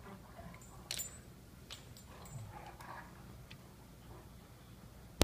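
Two dogs play-wrestling on a couch: quiet mouthing and scuffling with a few sharp clicks along the way, and a sudden loud knock at the very end.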